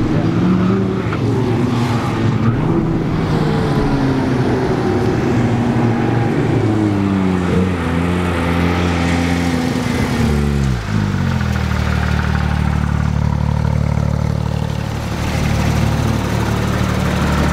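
Car engine pulling and easing off, its pitch rising and falling several times. The pitch drops sharply about ten seconds in, then the engine runs on at a steady, lower pitch.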